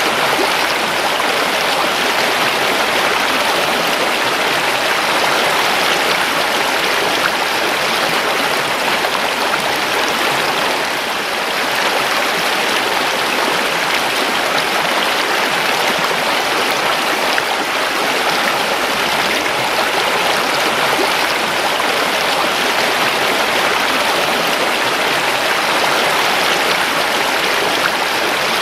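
A creek running over stones: a steady, continuous rush of flowing water.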